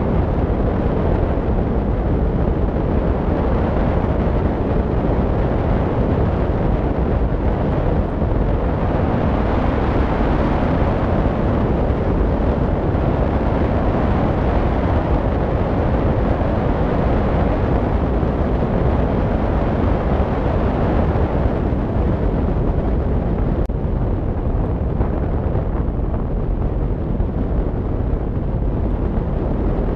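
Wind rushing over the microphone of a wing-mounted camera on a hang glider in flight: a loud, steady buffeting noise, heaviest in the low end, turning hissier for about ten seconds in the middle.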